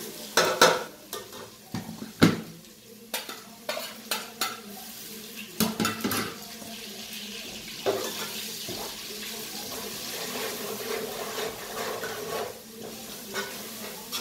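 A spoon knocks against a stainless steel pot as spices are tipped in, with several sharp knocks in the first six seconds, then scrapes and stirs through a sizzling masala of fried onions and ginger-garlic paste.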